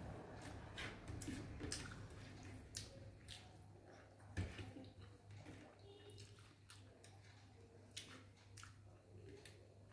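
Faint sounds of eating by hand: rice and curry being mixed and squished with the fingers on a plate, with chewing and small wet clicks, and one sharper tap about four and a half seconds in. A low steady hum runs underneath.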